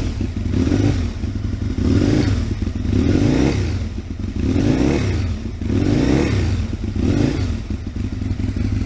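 Aprilia RSV Mille 1000 V-twin engine revved in a series of short throttle blips, about one every second or so, each rising and falling back to idle, while it warms up. The exhaust is very loud, which the owner blames on the exhaust he intends to change.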